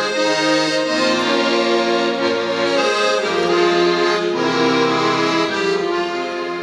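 Accordion playing the instrumental introduction to an old Ukrainian folk song, with held chords and a melody changing every second or so before the voice enters.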